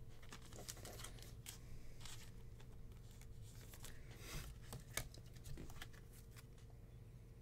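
Faint rustling and light ticks of trading cards being handled and set down, with a couple of sharper taps about four and a half and five seconds in, over a low steady room hum.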